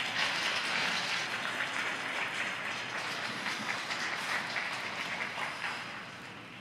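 Arena audience applauding, a dense patter of many hands clapping that dies down near the end.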